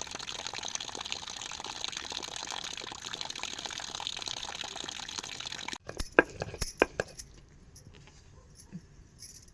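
Heavy rain falling in a dense, steady patter that cuts off suddenly about six seconds in, followed by a few sharp knocks and clinks.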